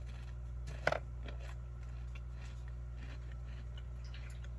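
Faint chewing of a dry ration biscuit over a steady low electrical hum, with one short, louder mouth or crunch sound about a second in.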